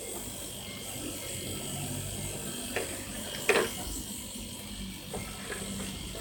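Salvaged refrigerator compressor running with a steady hum as a tyre air pump, with two sharp clicks about halfway through, the second louder.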